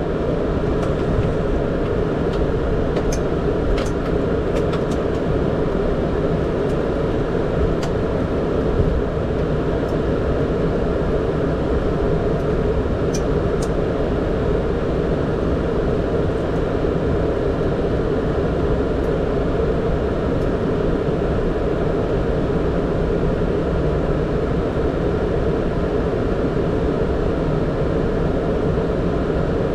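Steady flight-deck noise inside a Boeing 767, the even rush of airflow and engines, with a few faint ticks in the first dozen seconds.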